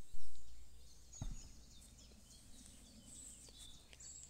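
Birds chirping and twittering in short high calls, over a faint outdoor hush. A low thud at the very start, the loudest moment, fades over the first second, and a second low thud comes about a second in.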